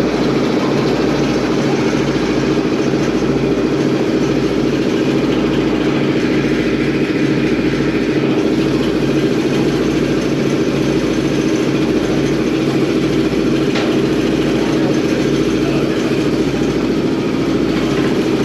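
Large engine running steadily at idle, with a regular low throb.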